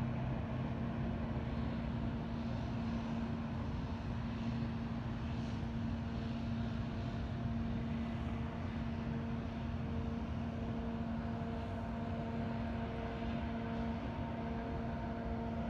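Distant diesel freight locomotives running, a steady drone with a faint higher hum over an outdoor rumble.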